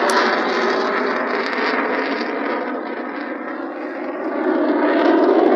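Jet aircraft passing close by, a loud steady engine roar that eases a little in the middle and swells again near the end.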